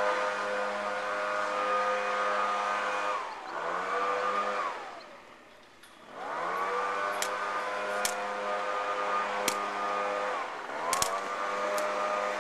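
A steady motor drone with a whine on top winds down and fades about halfway through, then climbs back up, and dips and recovers again near the end. Over it come a few sharp smacks of the rattan takraw ball being kicked.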